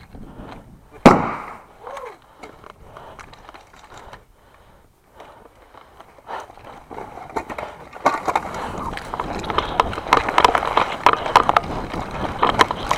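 Airsoft gunfire with BBs striking hard surfaces: one sharp, loud crack about a second in, then from about eight seconds a dense stretch of rapid clattering shots and hits.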